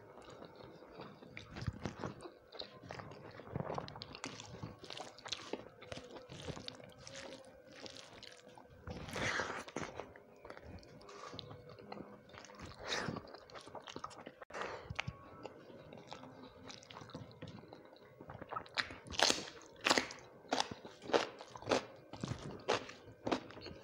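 A person chewing rice and fried vegetables with the mouth open, with wet smacks and crunchy bites. The smacks get louder and come about two a second in the last few seconds.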